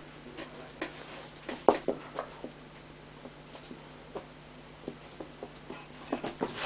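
A Great Dane puppy playing with a lemon: irregular light taps and clicks, the loudest about a second and a half in, thinning out in the middle and picking up again near the end, over a faint steady hum.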